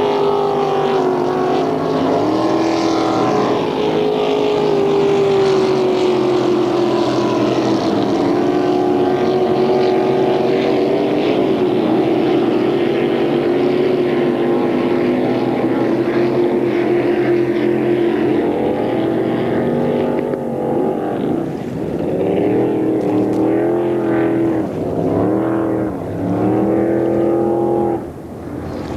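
Racing boat engine running, its pitch wandering up and down, with several quick dips and surges in revs in the last ten seconds.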